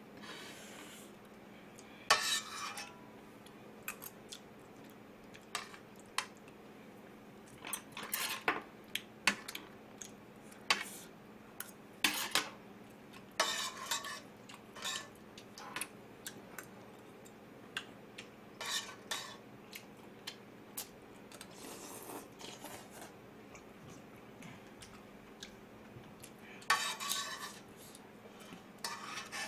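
Metal spoon and chopsticks clinking and scraping against a metal pot of ramen as the noodles and broth are scooped out, in irregular clinks and short scrapes.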